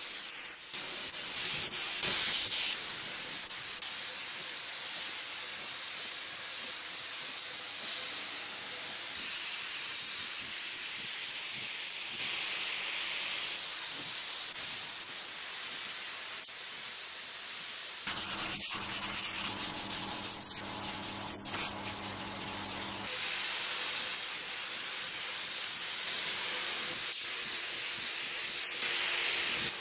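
Air spray gun hissing steadily as it lays a finish coat onto a wooden dresser; the hiss steps up and down in level several times, and a faint hum sits under it for a few seconds past the middle.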